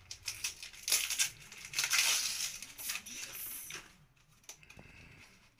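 Plastic wrapping crinkling and rustling as a gift is pulled out of its packaging by hand, in uneven bursts that die down about four seconds in.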